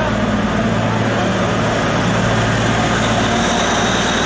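Diesel train idling at the platform: a steady engine hum.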